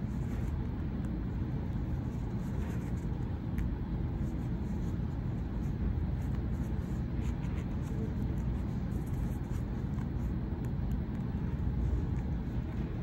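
Steady low background rumble, with faint scratching and rustling as a needle and thread are drawn through fabric to sew on a button.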